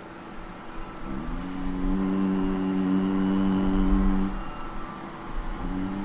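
Devotional bhajan singing: a long held note of about three seconds that scoops up into pitch about a second in, then a second held note starting near the end, over a low rumble.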